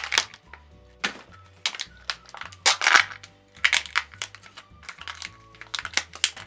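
Foil wrapper of a Kinder Surprise chocolate egg crinkling and crackling as it is peeled off, followed by clicks and rustles as the egg is opened to reach the toy and paper leaflet inside. Soft background music plays underneath.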